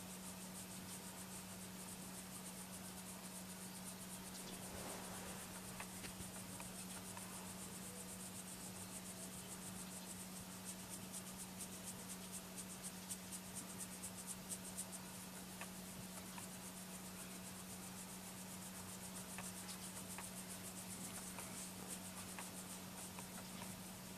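Fingers scratching a cat's fur: a faint, quick rasping of short strokes, busiest around the middle, over a steady low hum.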